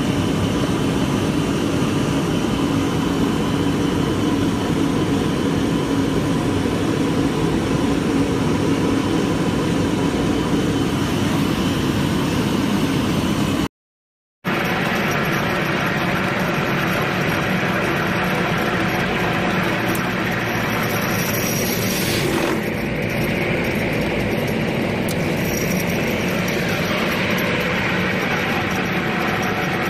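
Steady rush of fuel draining from a Boeing 787 main-tank sump into a sample bucket, over a low mechanical hum. After a brief cut to silence, fuel is heard rushing through a Boeing 737's refuel valves into the refuel manifold, pumped aboard from a refuel truck: a steady, even rushing.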